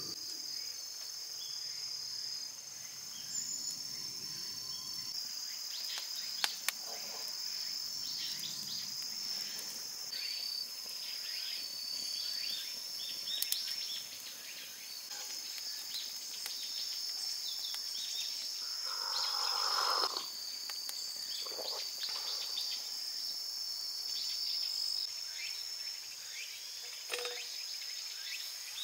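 Insects trilling in a steady high-pitched chorus, with scattered faint crackles and clicks and a brief louder sound about two-thirds of the way through.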